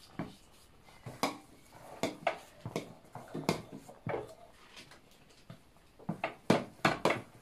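Metal spoon stirring salt into thick fermented dosa batter in a steel pot, knocking and scraping against the pot's sides in irregular clicks, coming faster near the end.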